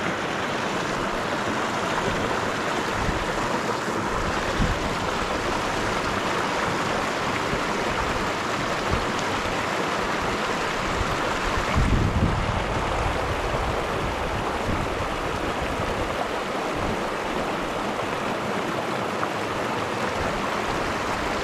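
Steady rush of flowing water running through a shallow muddy channel. About twelve seconds in there is a brief low thump.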